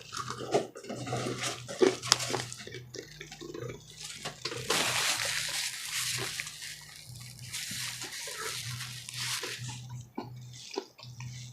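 Wet mouth sounds of eating fried chicken: chewing and lip-smacking clicks, with a longer wet, hissing stretch around the middle that sounds like liquid.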